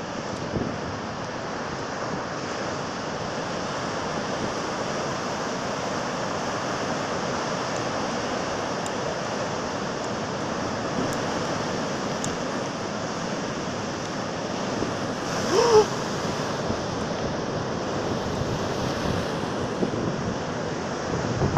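Heavy surf of a rough sea, waves breaking and washing in close to shore as a steady rushing wash. About two-thirds of the way in a brief pitched sound, the loudest moment, cuts through it.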